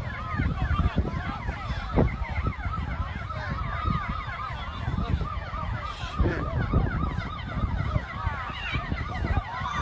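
Several emergency-vehicle sirens sounding at once, their quick rising-and-falling wails overlapping, over a continuous low rumble.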